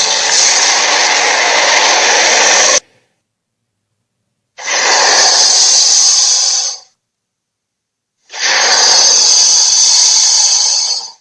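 Dinosaur roar sound effects: three long, breathy, hissing roars of two to three seconds each, with dead silence between them.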